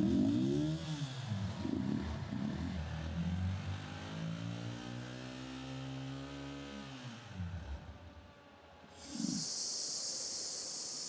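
Tez Raftar TR150 loader rickshaw's engine being revved and run, its pitch rising and falling sharply at first, then holding fairly steady before dropping away about seven seconds in. Near the end a short sound is followed by a steady high hiss.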